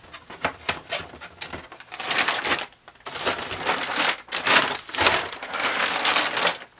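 Clear plastic zip-lock bags packed with resin model-kit parts crinkling as they are picked up and moved, the loose parts clattering against each other inside, with a short lull about three seconds in.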